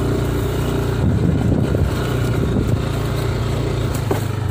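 Motorcycle engine running steadily under way on a dirt trail, heard from the rider's seat. Its note turns rough and uneven for about a second, starting about a second in.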